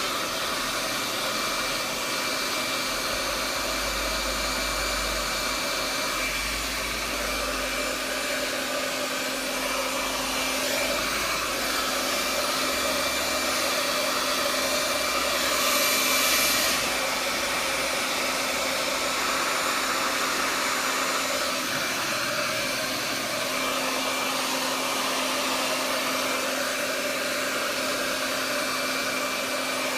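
Handheld hair dryer running steadily, with a brief louder, hissier stretch about halfway through.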